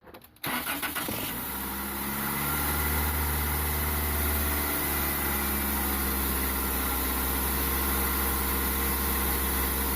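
A car engine idling steadily. It starts abruptly about half a second in.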